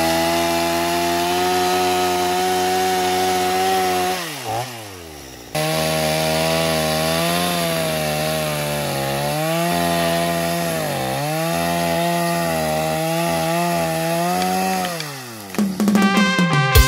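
Gasoline chainsaw running at high revs as it cuts into a log. Its pitch sags repeatedly under load as the chain bites. It winds down about four seconds in, cuts back in abruptly a second or so later, and winds down again near the end.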